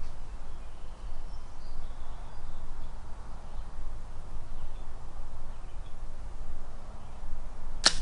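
Steady low background rumble with a few faint bird chirps; near the end a single sharp snap, the bow being shot at a gobbler.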